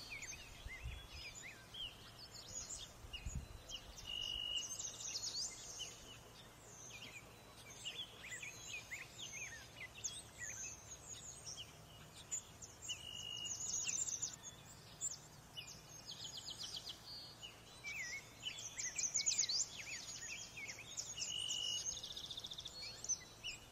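Small birds chirping and singing, many overlapping short calls and rapid trills, with a few brief held whistled notes. A couple of low thumps sound near the start.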